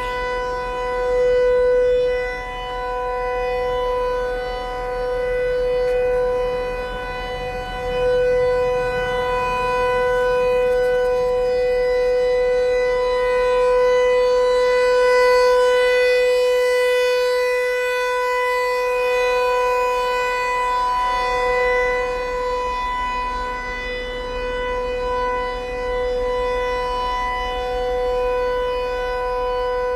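FS-508 rotating outdoor warning siren sounding its steady full-alert tone on a monthly test: one unbroken pitch that swells and fades every few seconds as the rotating horn sweeps toward and away from the listener.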